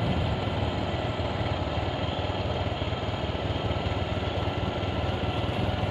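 Vehicle engine running steadily while under way, with road noise.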